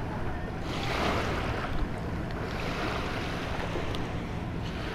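Wind buffeting the microphone over small waves washing onto a sandy beach: a steady low rumble and hiss that swells briefly about a second in, with a faint tick or two.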